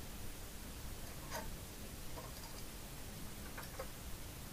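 Faint, scattered ticks of hand soldering, four or five over a few seconds, as lead-free rosin-core solder is fed onto header pins with a soldering iron. They sit over a low, steady hiss.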